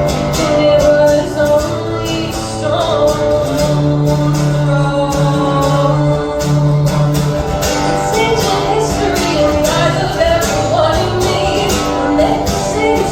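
Live performance of a song: guitar-led music with a steady beat and some singing.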